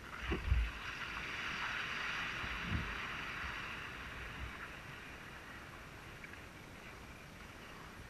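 Kayak moving across calm water: a swish of water that swells and then fades over the first few seconds, with two low thumps, about half a second in and near three seconds in.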